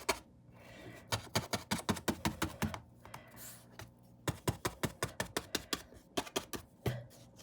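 A paintbrush dabbing paint onto the painting surface: two runs of quick, sharp taps, about six a second, each lasting about two seconds, with a short pause between and one last tap near the end.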